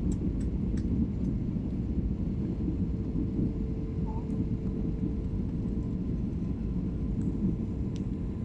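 Steady cabin drone of a jet airliner descending on approach, heard inside the cabin: a low rumble of engines and airflow with a faint steady hum. A few faint ticks come in the first second.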